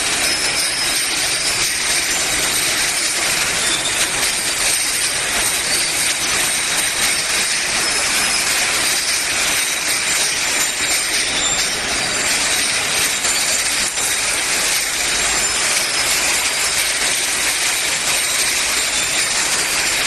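Glass jars clattering against each other on the plastic chain conveyors of a running bottle-filling line: a steady, dense rattle with a faint high whine from the machinery.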